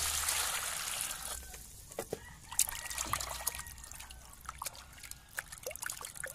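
Water pouring into a plastic basin of fish for about the first second and a half, then hands swishing and rubbing the fish in the water with small splashes and drips.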